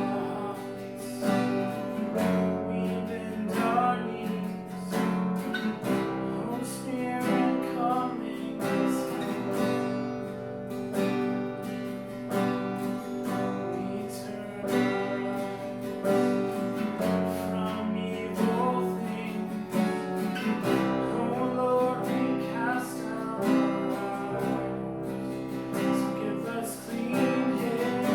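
Worship song with strummed acoustic guitar and a singing voice, continuous and steady.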